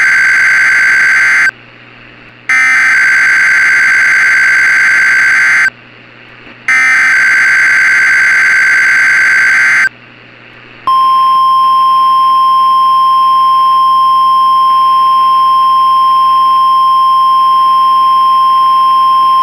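NOAA Weather Radio emergency alert signal. First come three harsh, shrill bursts of SAME digital header data, about three seconds each with short gaps. About eleven seconds in, a long steady single-pitch warning alarm tone begins; it signals that a tornado watch is about to be read.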